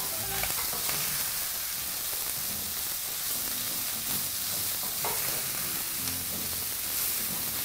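Chicken and vegetables sizzling steadily in a stainless-steel frying pan while being stirred with a wooden spoon.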